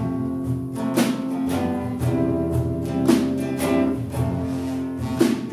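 Acoustic guitar strummed in a steady rhythm of about two strokes a second, with a cello holding low notes underneath: an instrumental passage of a live folk-pop song between sung lines.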